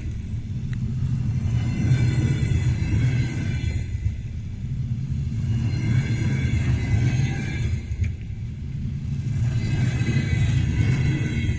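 Double-deck passenger train rolling slowly out of the station: a steady low rumble of wheels on rails, with a higher rushing that swells and fades about every four seconds as the cars go by.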